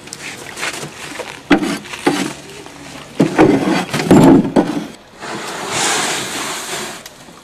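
Wooden panels of a homemade plywood folding boat knocking and thumping as it is unfolded and handled, several sharp knocks and heavier thumps. Then, after a break, a steady rushing noise for about two seconds.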